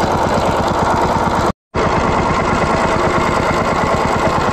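Small single-cylinder petrol engine driving a wooden boat, running steadily with an even rapid beat. The sound drops out for a split second about a second and a half in, then the engine carries on unchanged.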